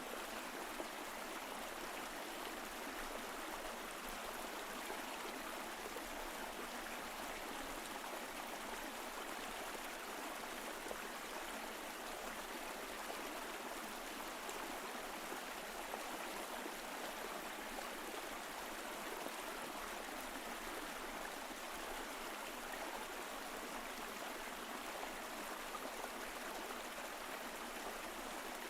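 Mountain stream flowing, a steady, even rush of water that does not change.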